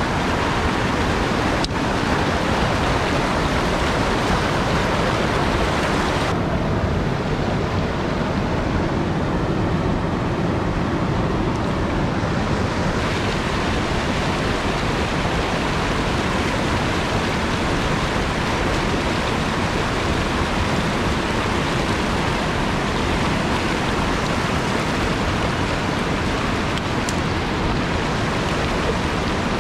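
Mountain stream rushing over boulders in small rapids and cascades: a steady, even roar of white water. From about 6 to 13 seconds in it sounds duller, with less hiss.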